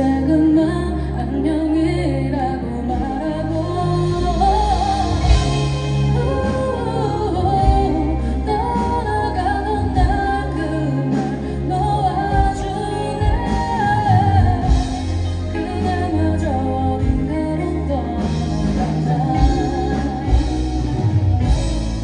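Live band performance: a woman singing lead into a microphone over electric guitar and drums.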